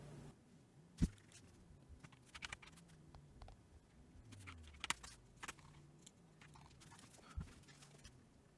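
Near silence: faint room tone broken by a few soft, scattered clicks, the clearest about a second in and near the middle.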